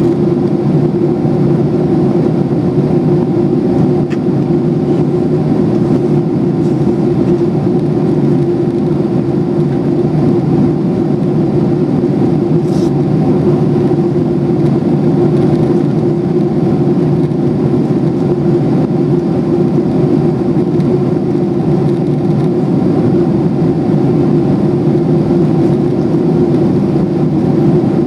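Steady in-flight cabin noise of a Boeing 767-300 airliner, heard inside the cabin: the even drone of its twin jet engines and the rushing airflow over the fuselage, with a steady low hum.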